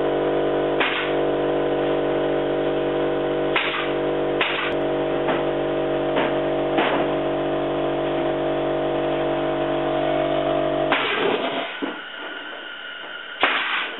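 Pneumatic brad nailer firing about five sharp shots over the steady hum of a running air compressor, which cuts off suddenly about eleven seconds in.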